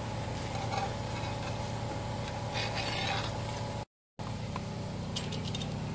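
A campfire burns over a steady low mechanical hum. A scraping rush comes about two and a half seconds in as the cast iron Dutch oven is handled off the fire. The sound cuts out completely for a moment just before the four-second mark.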